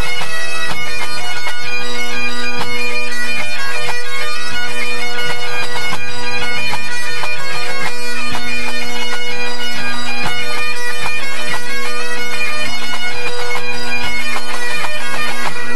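A pipe band's Great Highland bagpipes playing a tune together over steady drones, loud and continuous, as the band tunes up.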